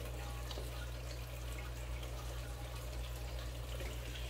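Steady low hum with faint trickling and dripping water behind it, with light scattered ticks.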